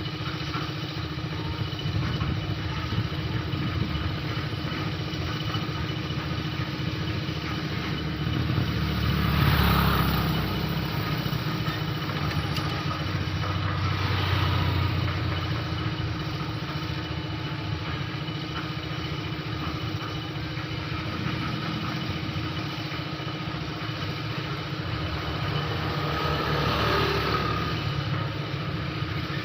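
Small engine idling steadily, swelling louder briefly about ten seconds in, again around fourteen seconds and near the end.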